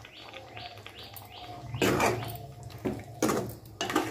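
Metal spatula scraping and stirring chicken pieces in a kadai, mixing in salt, with a few loud strokes from about halfway in. Faint high chirping is heard in the first second or so.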